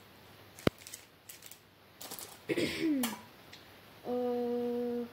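Small plastic clicks and taps as an old mobile phone is handled, with one sharp click less than a second in. Near the end comes a steady, even tone held for about a second.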